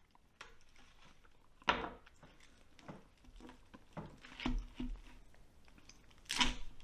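Roasted lamb head being pulled apart by hand on a cutting board: scattered small knocks, clacks and the crackle and tear of roasted skin and meat, with a sharper clack about two seconds in.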